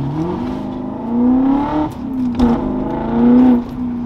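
E39 BMW M5's 4.9-litre V8 running through a straight-piped exhaust, heard from inside the cabin while accelerating on the highway. The engine note climbs at first, then holds and pulls steadily, with a brief dip in pitch about halfway before rising again.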